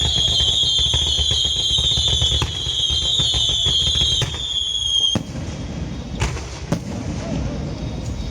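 Aerial fireworks going off: a high, slowly falling whistle over dense crackling and low rumbling, the whistle cutting off about five seconds in, then scattered sharp bangs and crackles.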